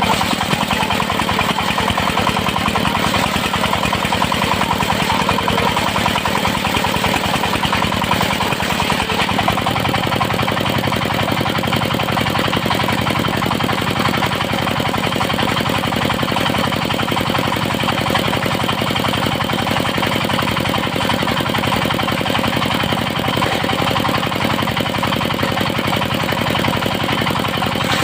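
Engine-driven sawmill circular saw running steadily at a loud, even level, with a change in its lower sound about a third of the way in.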